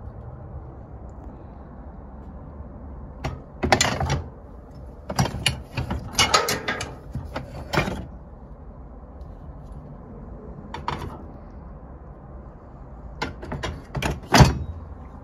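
Metal car parts clanking, rattling and scraping as they are handled: a power steering pump on a square-tube steel bracket shifted about in a plastic tub. The noise comes in four bouts of clatter, and the last ends in the loudest clank.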